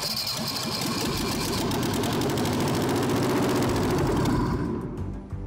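Four-cylinder car engine catching and running on its own for a few seconds, then dying away near the end: a first start of an engine that runs only briefly.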